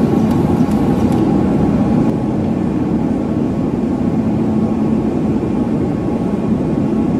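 A loud, steady mechanical drone, like a machine or blower running, with no clear rhythm.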